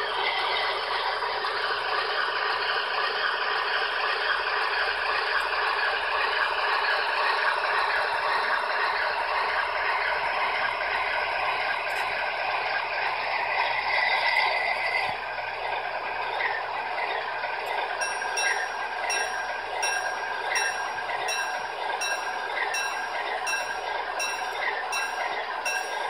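MTH HO-scale ALCO FA-1/FB-1 model diesel locomotives running their onboard diesel engine sound through small built-in speakers: a steady engine sound that drops a little in level about fifteen seconds in, after which an even rhythmic clicking about one and a half times a second runs with it.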